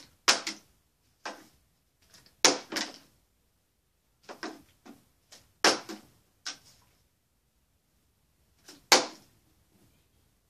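Partly filled plastic water bottle being flipped and landing on a wooden cabinet top, again and again: a series of sharp knocks, some in quick pairs as it bounces. The last knock, about nine seconds in, leaves the bottle standing upright.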